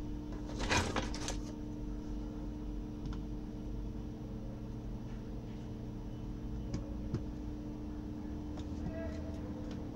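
Flathead screwdriver prying and scraping at the glued plastic seam of a sealed laptop power adapter case: a cluster of scraping clicks about a second in, then only a few faint clicks.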